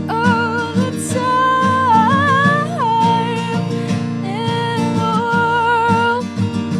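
A song with acoustic guitar and a singer holding long, wavering notes. One long phrase slides down near the three-second mark, and a second held phrase follows shortly after.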